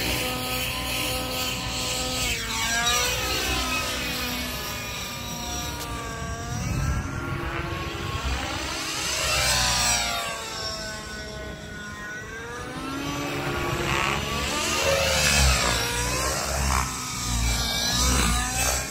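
Radio-controlled model helicopter in flight, its motor and rotor sound rising and falling in pitch again and again as it swoops past and climbs away.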